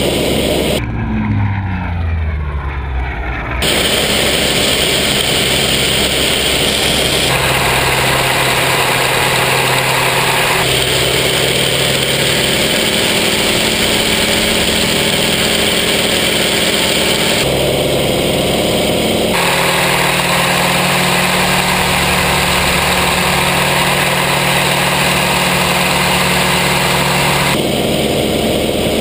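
Hawker Sea Fury's radial piston engine running hard, heard from inside the cockpit, its tone shifting several times through aerobatic manoeuvres. About a second in, the high end drops out for a couple of seconds while a tone falls in pitch, and then the full engine sound returns.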